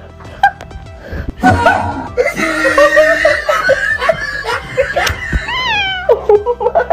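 Background music with a person laughing hard over it, and a short high rising-then-falling cry near the end.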